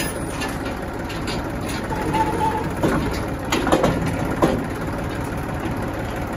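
Tractor engine running steadily at low revs during hitching to a trolley, with a few short knocks about halfway through.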